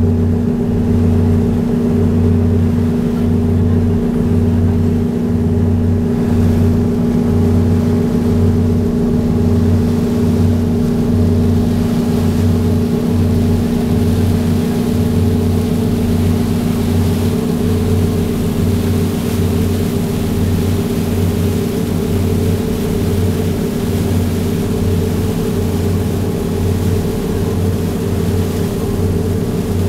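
The John J. Harvey fireboat's diesel engines running steadily underway: a loud, deep, constant hum with a slow, regular throb.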